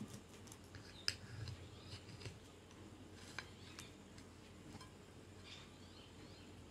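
Faint scattered clicks and light knocks of a dish and food being handled on a table, with a sharp click about a second in and another about three and a half seconds in.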